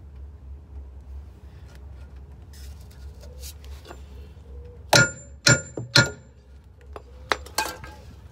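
Hammer blows on the steel neck of a Westfalia detachable tow bar: three loud, ringing metal clangs in quick succession about five seconds in, then a few lighter knocks near the end. It is banging meant to shock free a tow bar that is corroded and seized in its receiver.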